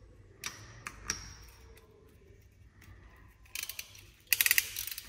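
Band-type piston ring compressor being tightened around a ringed piston with its ratchet key. There are a few light clicks, then from about three and a half seconds in come quick runs of rapid ratchet clicks.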